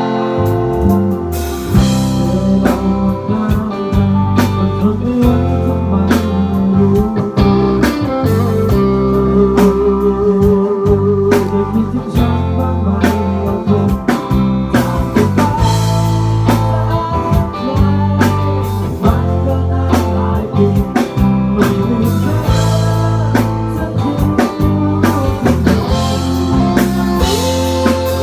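A band plays an instrumental break between sung verses: a lead melody with vibrato over bass and drum kit.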